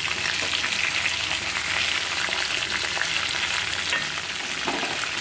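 Marinated chicken pieces deep-frying in hot oil in a kadhai: a steady sizzle with fine crackling. The chicken is at the end of frying, well fried through.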